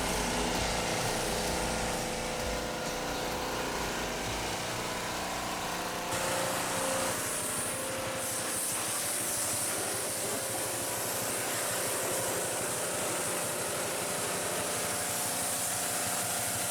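Gas-powered pressure washer engine running steadily, with the hiss of the water spray growing louder about halfway through. The sound cuts off suddenly at the end.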